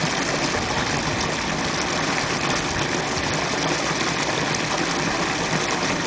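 Water gushing from an outfall and churning into a canal in a steady rushing noise, its surface white with foam.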